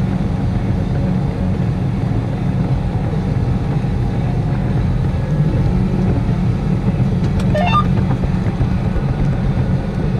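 Tractor engine running steadily, a constant low rumble. About three quarters of the way through, a short squeak rises in pitch.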